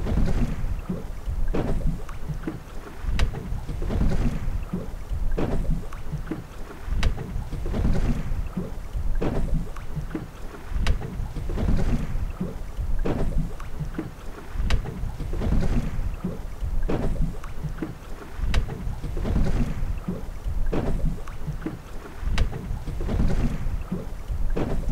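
Small waves lapping and slapping against the hull of a small fishing boat in a regular rhythm, about one slap every second and a bit, with wind rumbling on the microphone.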